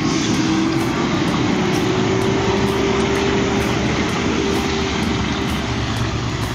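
Heavy log truck's engine running steadily under load, with a steady whine that slowly rises in pitch.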